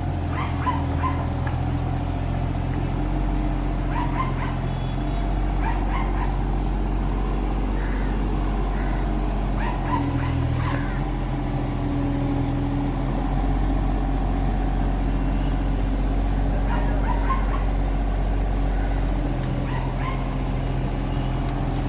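Kubota mini excavator's diesel engine running steadily, its note shifting a few times as the load changes. Short high yelps come every few seconds over it.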